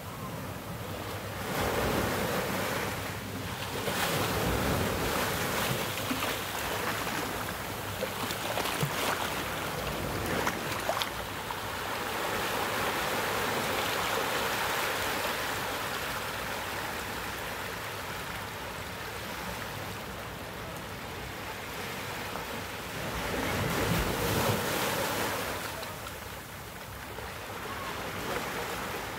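Small ocean waves breaking and washing in over volcanic rocks at the shoreline, the surf swelling and ebbing. The loudest surges come about two and four seconds in and again near the end.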